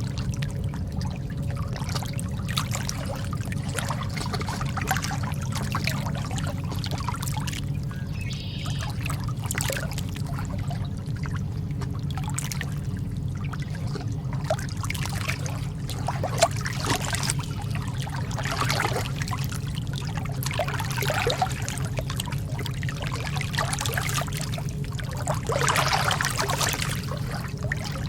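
Calm sea water lapping and trickling, with many small irregular splashes over a steady low rumble. The splashing swells briefly near the end.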